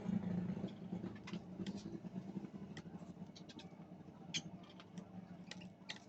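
Fischer's lovebirds giving short, sharp high chirps and clicks, scattered irregularly, over a steady low hum.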